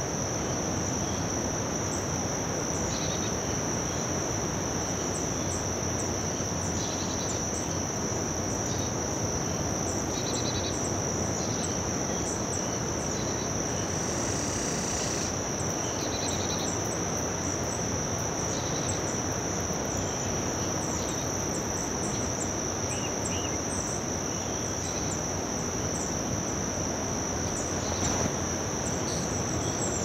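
A chorus of insects trilling in one steady, unbroken high note, with short chirps scattered above and below it, over a steady rushing hiss.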